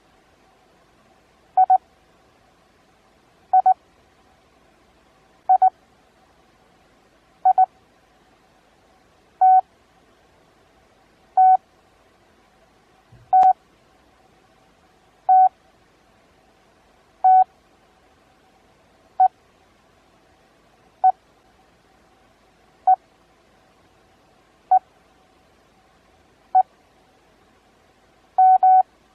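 Morse code practice tone, a single-pitch beep keyed into one letter about every two seconds with long gaps between letters (Farnsworth spacing). A few two-element letters come first, then five single dahs (T), then five single dits (E), and a letter of two long elements near the end.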